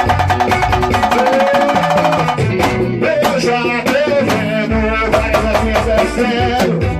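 Band music in the Bahian pagode style: dense, fast percussion hits under a melodic line, the arrangement shifting about two and a half seconds in.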